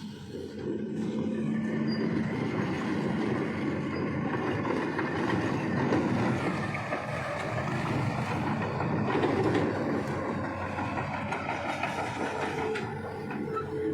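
A heavy vehicle rumbling and rattling over a rough gravel road under repair, a steady noisy rumble that swells about half a second in.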